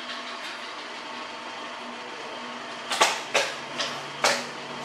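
A steady background hum, then four sharp knocks about half a second apart in the second half.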